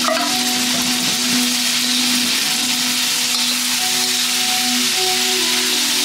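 Rice noodles sizzling steadily in a hot wok as they are stir-fried, with background music of long held notes over it.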